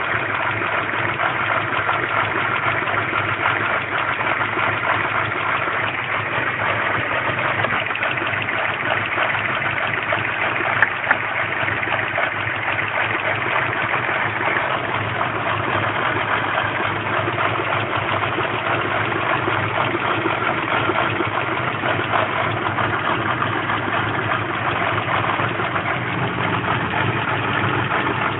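Land Rover Freelander's 1.8 K-series four-cylinder petrol engine idling steadily, with two short clicks about eleven seconds in. The engine has a failing fuel pump, which starves it of fuel pressure.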